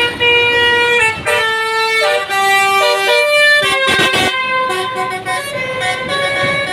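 Bus telolet horn (Basuri-type musical multi-tone horn) playing a tune: loud notes stepping from pitch to pitch every quarter to half second, starting abruptly, with a brief noisy burst about four seconds in.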